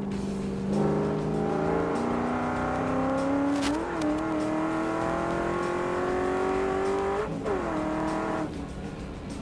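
Cadillac CTS-V race car's V8 pulling hard under acceleration, its note climbing steadily. About seven seconds in the pitch drops sharply at an upshift, and the engine sound fades out near the end.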